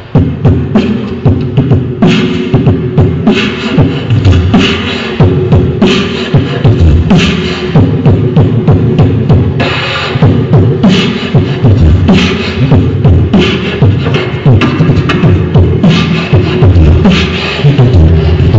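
Human beatboxing: a mouth-made drum beat of punchy bass kicks and sharp snare hits in a steady groove, with a steady held tone underneath.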